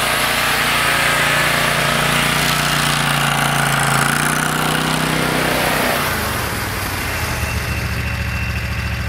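Snowmobile's 30 hp Loncin engine running at high revs as the machine ploughs through deep powder. About six seconds in the revs drop and it settles into low, steady running.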